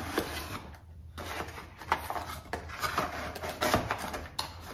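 A small perfume box being handled and opened: rustling packaging with several sharp clicks and taps at irregular moments.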